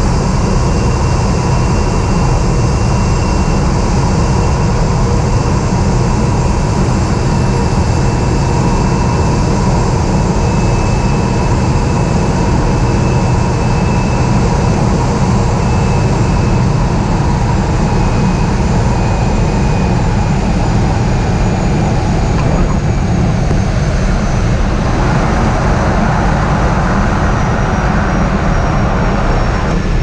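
Pilatus PC-6 Porter's engine and propeller heard close up from a camera on the airframe during the landing roll, with a heavy low rumble of wind on the microphone. Thin high whining tones slowly fall in pitch as the engine winds down.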